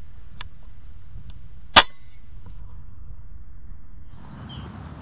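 A single shot from an FX Crown .22 pre-charged pneumatic air rifle a little under two seconds in: one sharp crack with a brief ring after it, over a steady low background.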